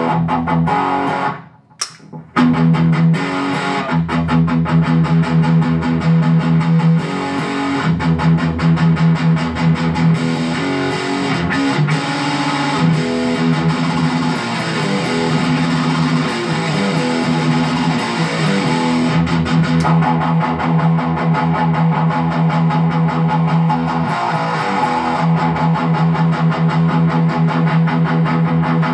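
Electric guitar played through a Boss BD-2 Blues Driver overdrive pedal and a Boss GE-7 graphic equalizer, a picked riff with held low notes. The playing stops briefly about two seconds in, then carries on.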